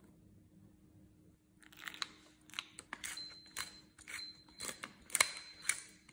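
Hand-twisted pepper mill grinding peppercorns, a quick run of crunchy grinding bursts about twice a second, starting about a second and a half in.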